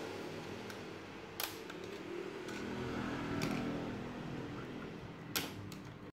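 Hands and a screwdriver clicking and tapping on the plastic back and stand of an Acer G195HQV LCD monitor during disassembly, with a few scattered clicks; two sharper ones come about a second and a half in and near the end. A steady low hum runs underneath.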